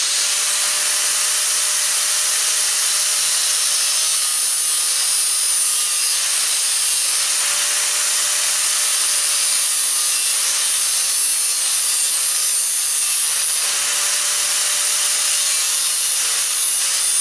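Angle grinder with a thin cut-off disc running at steady speed with an even whine, cutting slots out of a steel barrel hinge clamped in a vise to form its knuckles.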